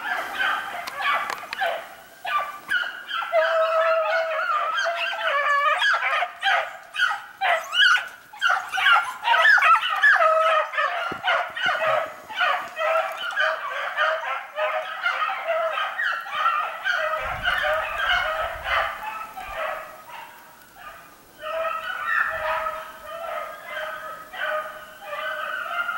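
A pack of hounds baying in full cry on a hunted track, many voices overlapping continuously, dipping briefly about three-quarters of the way through. The pack is split onto more than one track.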